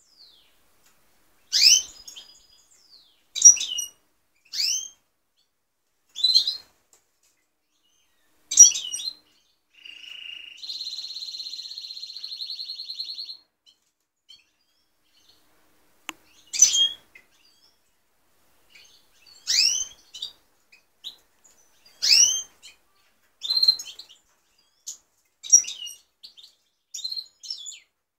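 European goldfinches calling: short, sharp chirps that sweep down in pitch, one every second or two. Near the middle comes a buzzy, rapidly pulsed trill of about three seconds that steps up in pitch partway through.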